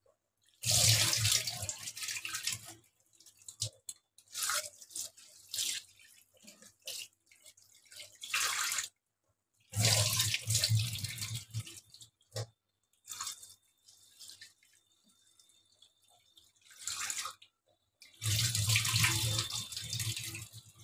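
Tap water splashing into a steel bowl of rice and poured off into a stainless steel sink while the rice is rinsed by hand. It comes in three longer runs of about two seconds each, about a second in, about ten seconds in and near the end, with shorter, fainter splashes and drips between.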